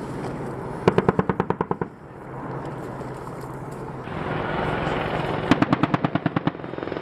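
AH-64 Apache's 30 mm M230 chain gun firing two bursts of about ten rounds each, at roughly ten shots a second: one about a second in, the other near the end. Under the shots the helicopter's rotors and turboshaft engines run steadily.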